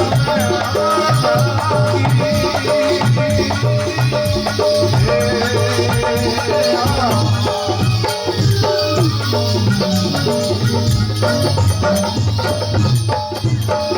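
Instrumental Rajasthani desi bhajan music: a pitched melody line over a steady beat of hand drum and shaker.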